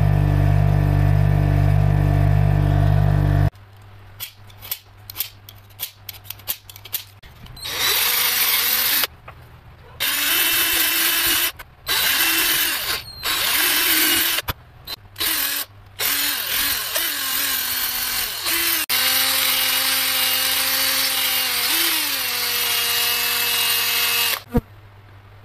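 Bench grinder motor running steadily, cutting off after about three and a half seconds. Then a cordless drill boring a small hole into a wooden dowel, started in short spurts and then run in longer bursts. Its pitch drops once near the end.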